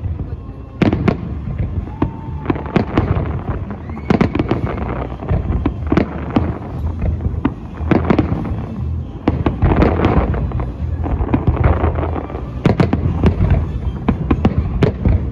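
Aerial firework shells bursting one after another in a dense, irregular barrage, sharp bangs over a constant low rumble.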